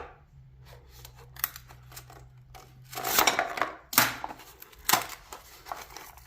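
Hands working at stubborn packaging to get it open: scattered rustling and scraping, a longer scrape about three seconds in, and several sharp clicks.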